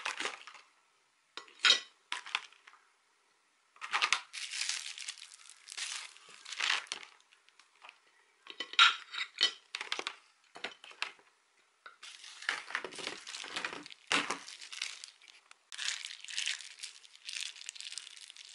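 Food being dished out: a metal spoon scraping and clinking against a plastic takeaway tray and a ceramic plate, in irregular bursts with a few sharp clinks, along with the crinkling of plastic food bags being handled and squeezed out.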